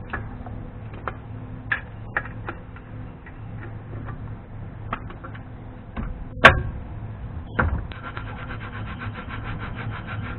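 Hand tools working on a brake caliper's mounting bolts: scattered metal clicks and taps, one loud metal clank about six and a half seconds in, then a socket ratchet clicking fast and evenly as a loosened bolt is spun out.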